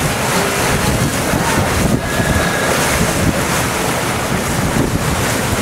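Wind buffeting the microphone on a moving boat, over the steady rush of sea water along the hull.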